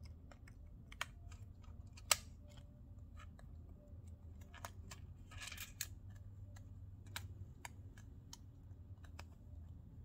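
Small scattered clicks and taps of plastic and circuit board as a replacement charging-port board is pressed into place in a Samsung Galaxy Tab A 10.1 tablet's frame, with one sharper click about two seconds in and a brief scraping rustle about halfway through.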